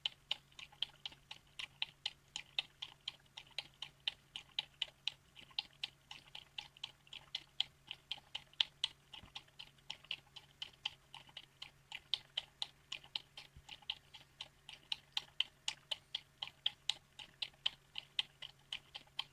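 A miniature dachshund lapping up soup with its tongue: a steady run of wet clicks at about four a second, without a break.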